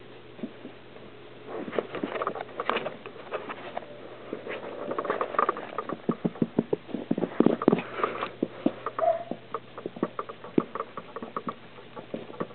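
Miniature schnauzer puppy playing with plush toys on carpet: a run of quick scuffles and taps, starting about a second and a half in and busiest in the middle, with one brief short high note about nine seconds in.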